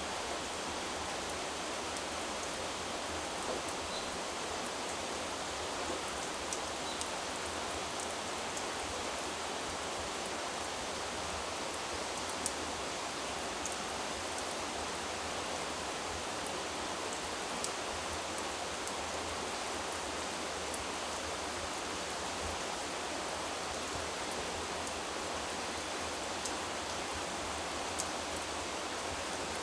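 Mountain stream flowing steadily over rocks, an even rushing of water with a few faint splashing ticks.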